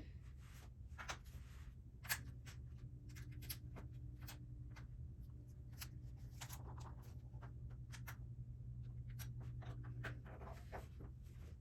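Small plastic clicks and taps of LEGO pieces being handled and pressed together, coming irregularly, over a low steady hum.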